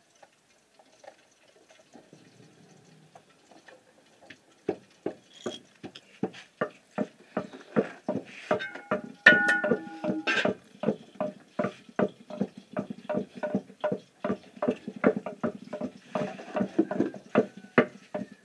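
Wooden pestle pounding in a mortar: steady knocks about two a second, starting about four seconds in. A short pitched call sounds over the knocking about halfway through.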